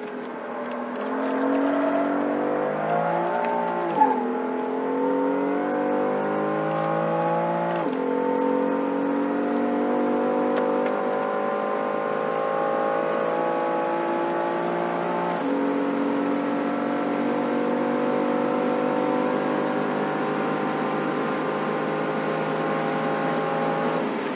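2015 BMW M3's twin-turbo straight-six accelerating hard under full throttle, its pitch climbing steadily in each gear and dropping sharply at three upshifts. The first upshift comes with a sharp crack.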